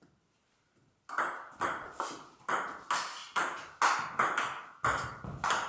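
Table tennis rally: a hush, then about a second in the serve starts a steady run of sharp clicks, about two a second, as the celluloid-type ball strikes the bats and bounces on the table.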